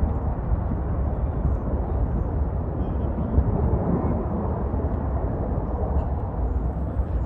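V-22 Osprey tiltrotor flying low overhead in helicopter mode: a deep, steady rumble from its proprotors and engines.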